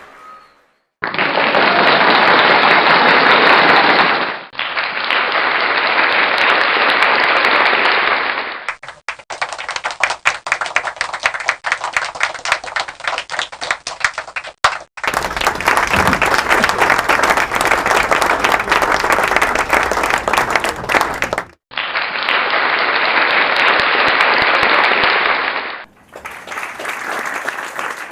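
Crowd applause and clapping, a series of separate recordings played one after another, each lasting a few seconds and cut off by a short gap. Some are a smooth, dense wash of many hands, while others, in the middle and near the end, have individual claps standing out.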